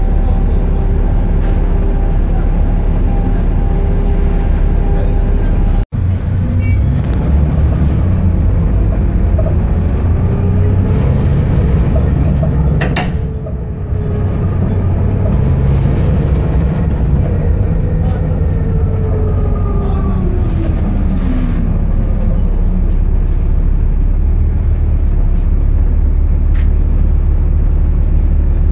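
A Volvo B7TL double-decker bus's diesel engine and drivetrain heard from inside the passenger saloon: a loud, steady low rumble, with a whine that rises as the bus gathers speed and then falls as it slows. Thin high squeals come near the end as it draws to a halt. The sound cuts out for an instant about six seconds in.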